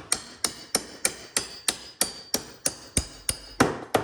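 Hammer tapping a toolbox part down into its rails, a steady run of sharp strikes about three a second with a short ring after each. The loudest strike comes near the end.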